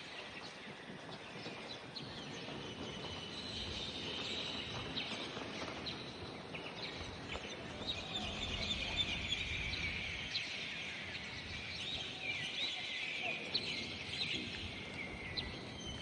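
A dense chorus of many small birds chirping all at once, a continuous mass of quick high notes with short falling sweeps, sounding amplified.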